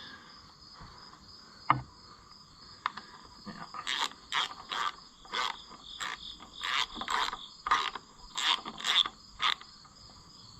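Hand ratchet wrench worked in short quick strokes, its pawl rasping about twice a second for several seconds, after a single sharp metallic click.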